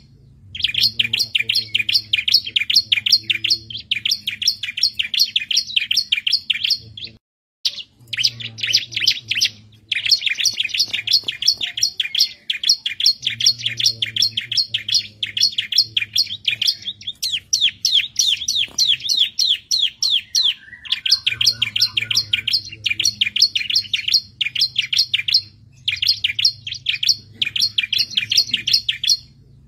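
Bar-winged prinia (ciblek) singing in full song: fast runs of sharp, high chirps, about eight to ten notes a second, in phrases of a few seconds broken by short pauses.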